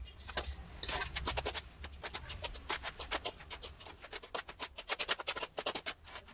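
Steel trowel scraping and clicking against a metal pan while stirring dry cement mix, in a quick, irregular run of strokes.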